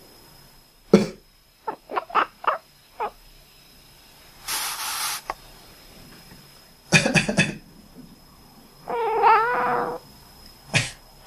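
A person coughs several times, and a pet cat answers the first cough with a quick run of short, quack-like chirps. A noisy hiss-like burst comes in between, and near the end there is one longer wavering call.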